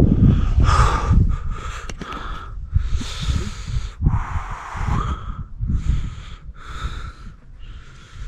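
A man breathing audibly close to the microphone, in and out about once a second, with wind rumbling on the microphone underneath.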